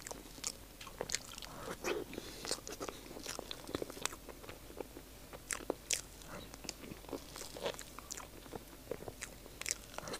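Close-miked eating of a soft matcha mille crêpe cake: quiet chewing with many small, irregular wet mouth clicks.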